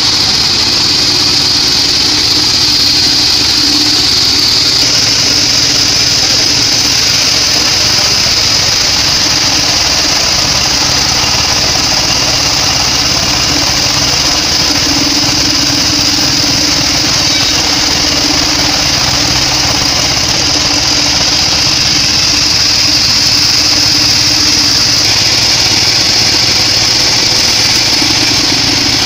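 Sawmill bandsaw running steadily with its engine while sawing weru wood, a constant high-pitched whine over the engine's running.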